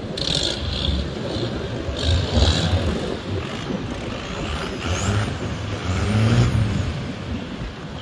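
Speedboat engines running at speed, with water rushing and wind buffeting, louder in surges.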